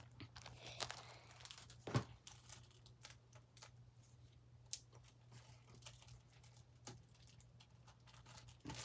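Faint crinkling and rustling of a plastic bag being handled, with scattered small clicks over a faint steady low hum.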